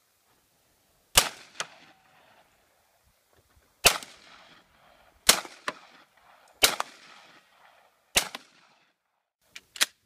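Five single gunshots from a compact carbine, fired one at a time with a second or more between them. Each loud crack is followed a moment later by a fainter second crack. Two quick, weaker cracks come just before the end.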